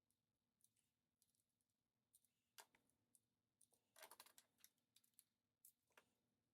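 Faint, scattered clicks and ticks from small parts and hand tools being handled while a telescope mount's declination motor assembly is put together, with a cluster of quick clicks about four seconds in.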